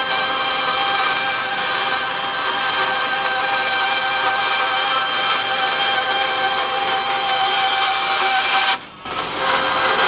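Band saw running and cutting through a sheet of fibreboard, a steady whine over the rasp of the blade. The sound drops out sharply for a moment about nine seconds in, then resumes.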